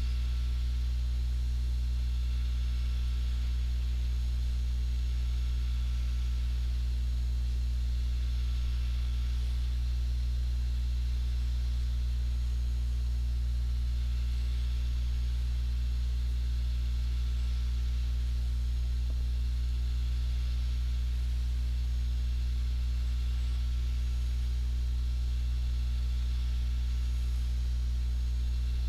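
Steady low electrical mains hum with a faint hiss above it, unchanging throughout.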